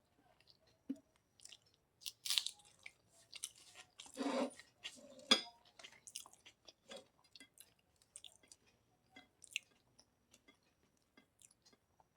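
A person chewing food close to the microphone, with irregular wet lip-smacks and mouth clicks; the loudest bites and chews come about two, four and five seconds in.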